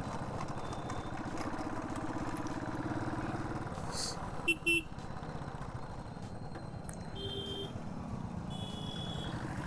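Motorcycle engine running steadily under way, climbing a hill road. About halfway through, a vehicle horn gives two short, sharp beeps, and two fainter horn beeps follow near the end.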